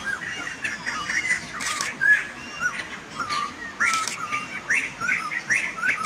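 A flock of white-crested laughingthrushes calling together: a stream of short, quick notes that rise and fall, overlapping one another, with harsher squawking notes mixed in.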